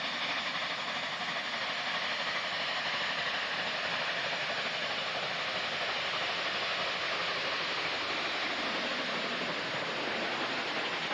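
Nickel Plate Road 765, a 2-8-4 Berkshire steam locomotive, running at speed with a passenger train, a steady rushing noise as it approaches and passes close by near the end.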